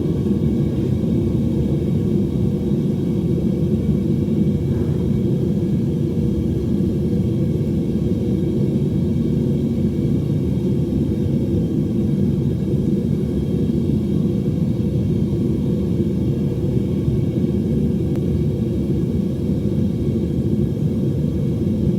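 Home metal-melting furnace running: a steady low rumble that holds evenly throughout, starting abruptly at the outset.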